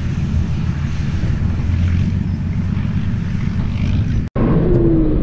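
Heavy wheeled military vehicles' engines rumbling steadily as the column drives. The sound cuts off abruptly for an instant just over four seconds in, then carries on.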